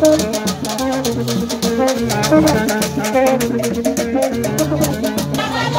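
Haitian rara band playing live: long metal horns (konet) blow short, repeated interlocking notes over a dense, fast rhythm of rattles and drums.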